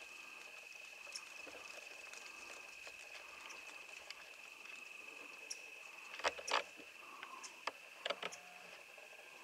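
Quiet woodland ambience: a faint steady high-pitched hum with scattered small ticks. Two short bursts of sharp crackling snaps come about six and a half and eight seconds in.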